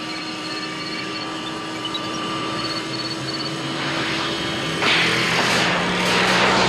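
A car engine running and speeding up, its pitch stepping upward, with a sudden jump to a louder rush of noise about five seconds in.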